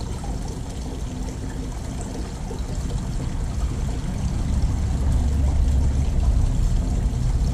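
Steady trickle of water from a small tiered stone fountain, with a low rumble that grows louder about halfway through.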